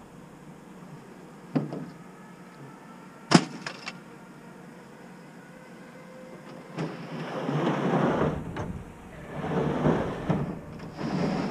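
Scrap metal being unloaded from a truck bed: two sharp clanks, then from about seven seconds in, repeated bursts of scraping and clattering as pieces are dragged and tossed.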